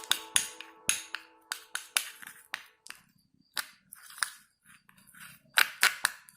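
Slime being handled, giving a series of irregular sharp sticky clicks and snaps with short gaps between them. Soft background music fades out at the start.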